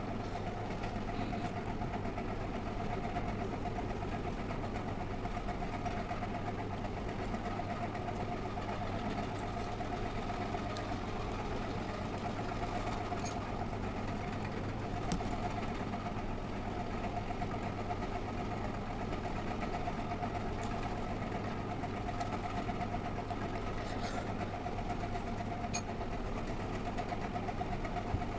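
A steady motor-like hum with a constant mid-pitched whine, unchanging throughout, with a few faint clicks.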